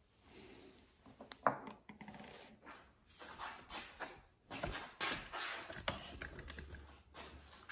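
Quiet workbench handling noise: scattered clicks, taps and rustles as small brass regulator parts are handled, with one sharper click about a second and a half in.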